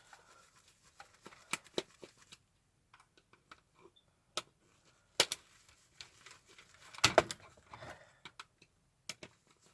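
Scattered sharp clicks and taps of plastic and metal camcorder parts being handled and pried apart, with a louder clatter about five and seven seconds in.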